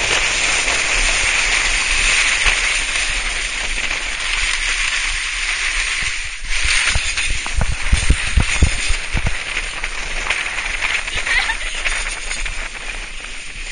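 A sledge towed behind a car, sliding fast over packed snow: a steady hiss and scrape of snow under the sledge, mixed with wind. A run of low thumps comes about 7 to 9 seconds in, and the sound dies down near the end.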